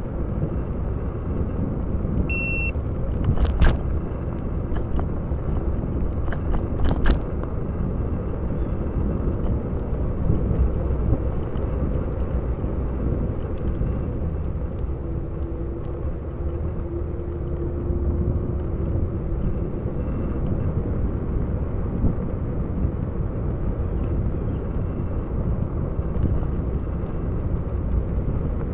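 A steady low rumble of wind on the microphone and tyres rolling along a trail while riding. A short high beep comes about two and a half seconds in, and two sharp clicks follow a few seconds later.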